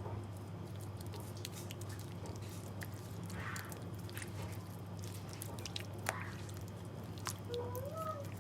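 Soft wet squishing and small clicks of raw chicken being worked by hand in a yoghurt and peri-peri marinade, over a steady low hum. A short voice-like sound comes near the end.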